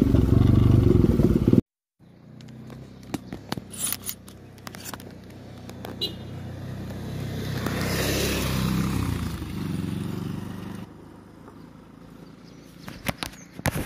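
Bajaj Pulsar NS200's single-cylinder engine idling steadily while the bike stands still, with scattered clicks and knocks of handling close by. The idle stops about eleven seconds in. Before that, the loud noise of the bike being ridden cuts off abruptly at a jump in the recording, before two seconds in.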